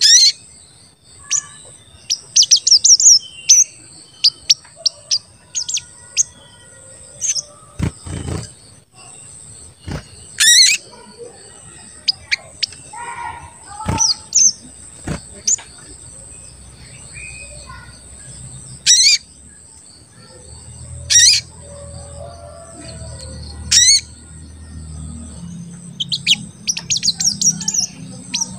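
Olive-backed sunbird (sogon) calling in sharp, high "cuit cuit" chirps and short quick trills at irregular intervals, with rapid runs of calls about two seconds in and again near the end.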